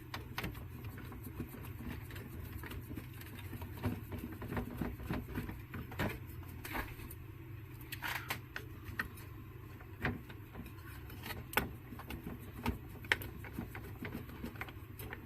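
Scattered small clicks and taps of an amplifier heatsink and circuit board being handled while the heatsink is fitted back onto the chip, over a steady low hum.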